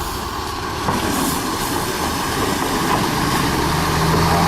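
Heavy vehicle's engine running under load, growing steadily louder as it drives into the river crossing.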